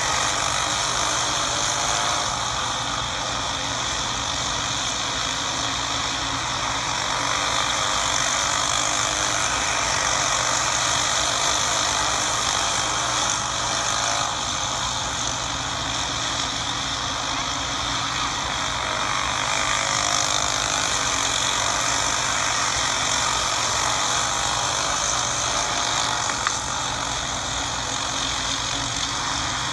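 Several racing karts' small engines running at race speed, a steady continuous engine noise without breaks.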